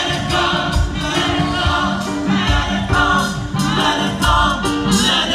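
Gospel music: a group of voices singing together over a drum beat.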